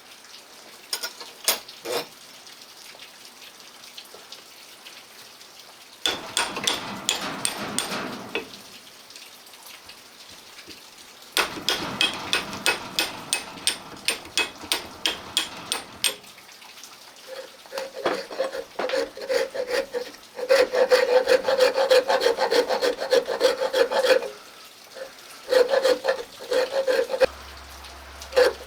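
Wood file rasping on a wooden axe handle in bursts of quick back-and-forth strokes, shaping the handle down to fit the axe head. The strokes start about six seconds in and come in three runs with short pauses; the last run, near the end, carries a steady ring.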